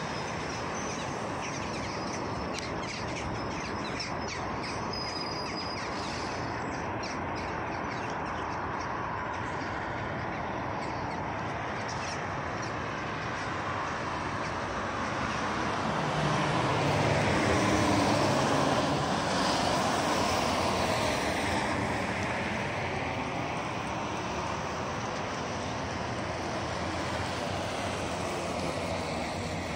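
Steady road traffic on a wide city avenue, with one vehicle passing close a little past halfway, its sound swelling and then fading as it goes by.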